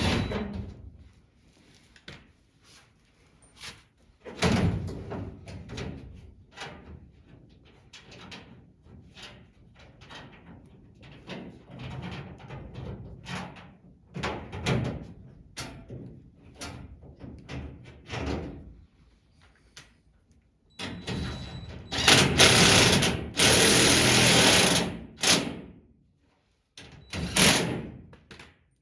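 Hand work on a plastic race-car rocker panel: scattered knocks, clicks and rattles of the panel and tools. About 21 seconds in comes a loud hissing rush lasting about four seconds, then a shorter burst.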